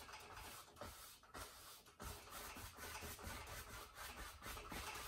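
A 2-inch paint brush rubbing over a canvas wet with oil paint in repeated short strokes as the paint is blended. The sound is faint.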